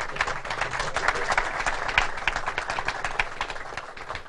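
Audience applauding: many hands clapping at once, thinning out toward the end.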